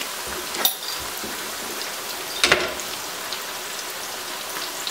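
Corn tortilla wedges deep-frying in hot oil in a wok: a steady crackling sizzle, with two louder sharp snaps about half a second and two and a half seconds in.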